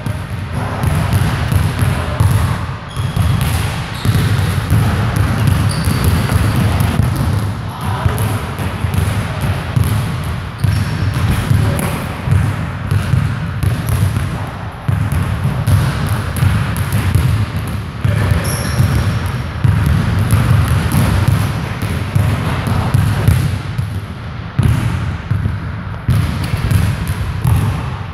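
Basketballs bouncing on a hardwood gym floor: dribbling and repeated thuds from several balls, overlapping throughout, with a few short high squeaks.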